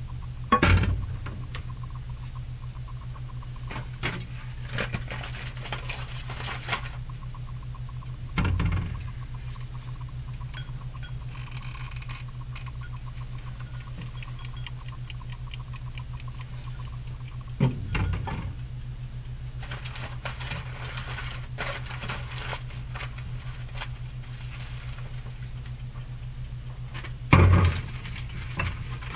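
Kitchen handling noises: four loud thumps and knocks, about nine seconds apart, of dishes and pans being picked up and set down, with light clicks and rustling between them. A steady low hum runs underneath.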